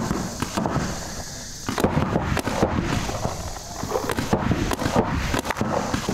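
Paintball markers firing single shots and short quick strings of shots, as sharp, irregular pops.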